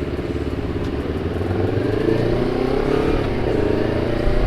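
Honda CBR250RR engine through a KEA Speed aftermarket exhaust, running as the bike is ridden, its note rising in pitch from about halfway through as it accelerates.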